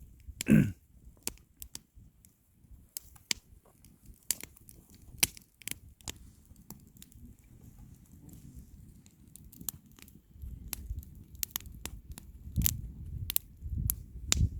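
Wood bonfire crackling, with irregular sharp pops scattered throughout over a low rumble. There is a short voice sound about half a second in.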